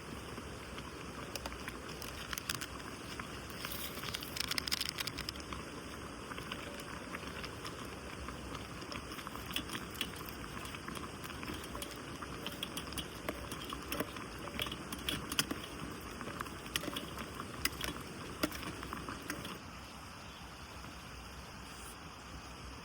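Mountain stream running steadily, with scattered small clicks and rattles of gear being handled; the sound steps down a little near the end.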